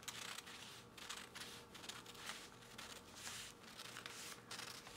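Scissors cutting up along the crease of a folded sheet of thin rice paper: a run of quiet snips, two or three a second.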